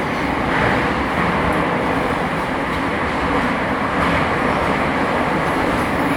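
Bucharest Metro M2 train running through a tunnel between stations, heard from inside the carriage: a steady rumble of wheels on rails.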